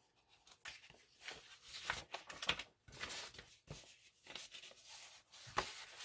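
Paper sheets rustling and flapping as the pages of a printed drawing set are turned over by hand, in short irregular bursts with a sharper rustle near the end.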